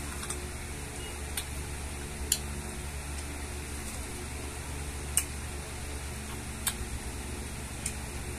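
Close mouth sounds of eating siniguelas (Spanish plums) by hand: a handful of short, sharp smacks and clicks of chewing and lips, spaced a second or so apart, over a steady fan-like hum.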